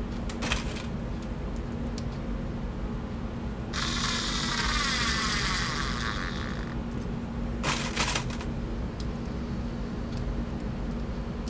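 Cordless screwdriver's small motor whirring for about three seconds as it tries to drive a screw into a pilot hole in a 2x4, running weakly on nearly drained NiCad cells that can barely deliver the torque. A few sharp clicks come before and after the run.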